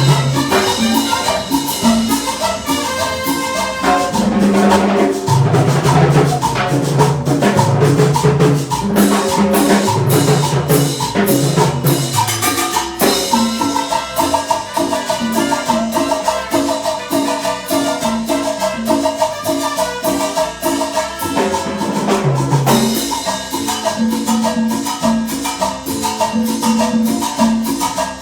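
A Latin dance band playing a cumbia with a steady percussion beat.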